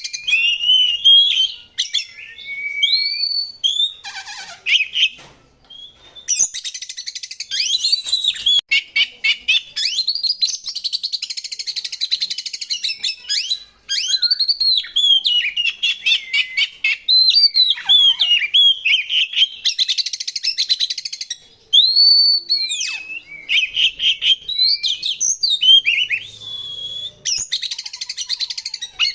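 Oriental magpie-robin (kacer) singing a long, varied song of clear whistled glides and rapid scratchy trills, broken by a few short pauses.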